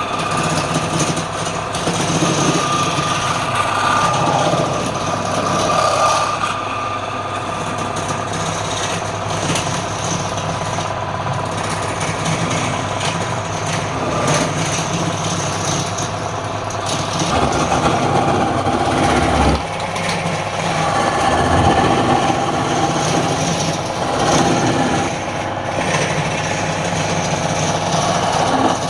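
Wood lathe running, with the scraping of a turning tool cutting the spinning wood that swells and eases as the cut changes.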